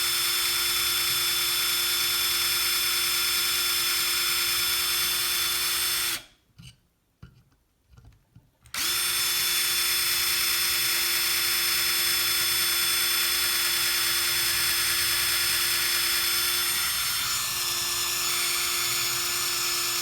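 Power drill running steadily with a cobalt drill bit cutting into steel. It stops about six seconds in, with a few faint clicks, then starts again a couple of seconds later and runs on.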